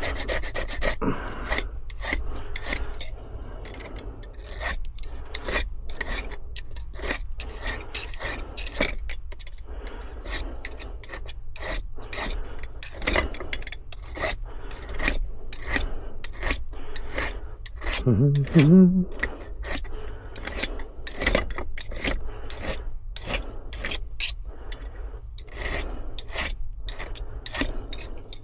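Hand file rasping in repeated back-and-forth strokes, roughly two a second, across a freshly cut key to deburr its sharp edges. A brief pitched sound about 18 seconds in is the loudest moment.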